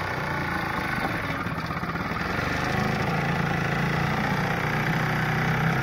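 7.5 hp Ted Williams (Sears) air-cooled two-stroke outboard motor running steadily on a small jon boat, getting louder about halfway through as it picks up revs.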